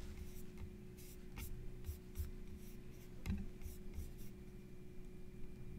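Faint scratching and tapping sounds, about a dozen short scrapes and light knocks over the first four seconds, over a steady low hum.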